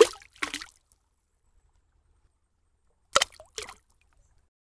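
Cartoon splash sound effect: a sharp liquid plop as an egg drops into a bucket of paint, with a smaller splash about half a second later. A second, similar pair of splashy sounds comes a little after three seconds in.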